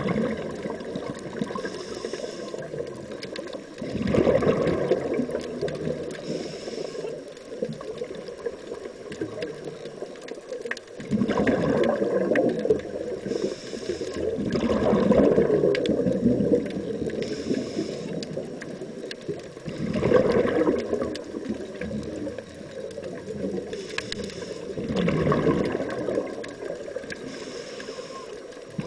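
Scuba diver breathing through a regulator, recorded underwater: a short hiss on each breath in, then a few seconds of gurgling exhaust bubbles on each breath out, repeating about every five seconds.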